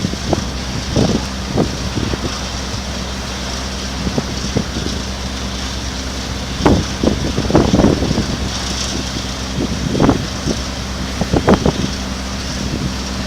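Steady low engine drone, with irregular gusts of wind buffeting the microphone.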